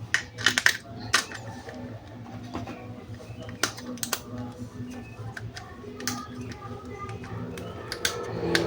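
Sharp clicks and snaps of plastic toy parts being handled, a quick cluster in the first second and then single clicks every second or two, over faint background music.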